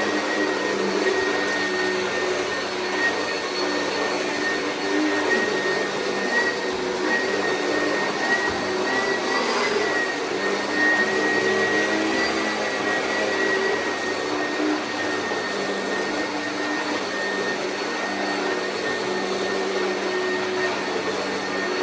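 Oreck vacuum cleaner running steadily, a dense motor noise with a high, steady whine.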